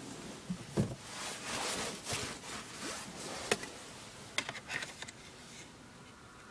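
Rustling and rubbing, with several sharp clicks spread through it.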